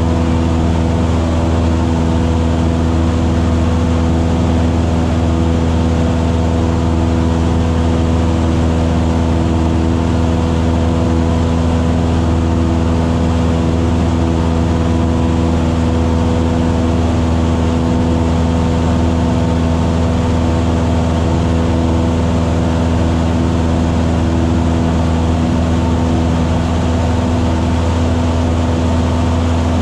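Piston engine and propeller of a single-engine high-wing light aircraft in flight, running at a steady power: an even drone with a strong low hum and several steady tones above it.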